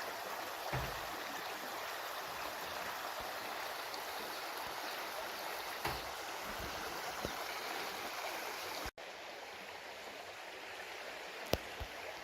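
Shallow creek rushing steadily over rocks, with a few faint knocks. The sound cuts out for an instant about nine seconds in, then goes on slightly quieter.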